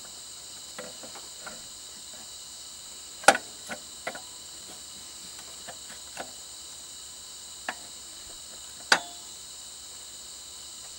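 A replacement alternator being seated by hand against its engine mount, giving a few sharp metal clunks: the loudest about three seconds in and another near nine seconds, with lighter knocks between. A steady high-pitched trill runs underneath throughout.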